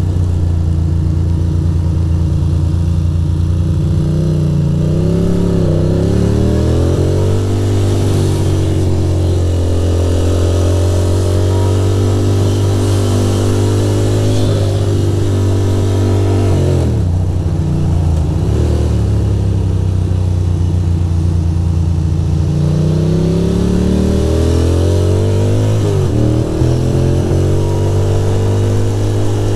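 Ducati Monster's V-twin engine running under way in the rain, its pitch rising and falling with the throttle, with a sharp drop and pick-up about 17 seconds in and another dip near the end. The bike is running poorly, which the rider puts down to wet ignition coils.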